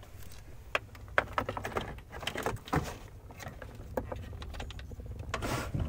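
Light plastic clicks and knocks of a car stereo head unit and its wiring-harness connectors being handled in the dashboard opening, with a brief rustle near the end, over a low steady hum.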